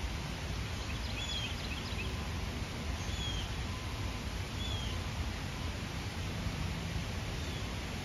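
Steady low rumble of wind on the microphone, with a few faint bird chirps about a second in and two short whistled bird notes around three and four and a half seconds in.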